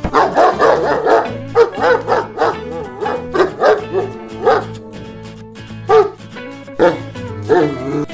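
Dog barking: a quick run of short, high barks for about five seconds, then a few single barks spaced out near the end.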